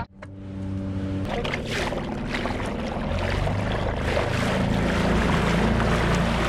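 Small outboard motor running steadily on a kayak under way, with water rushing past the hull; its hum shifts pitch a few times.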